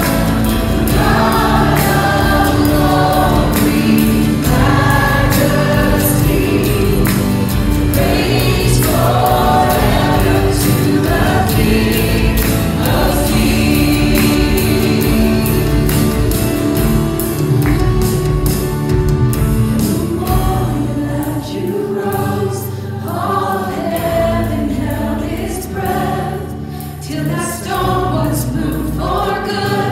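Live contemporary worship band, with acoustic guitar, keyboard and drums, playing a hymn while many voices sing along. About twenty seconds in, the deep bass drops away and the accompaniment gets lighter under the singing.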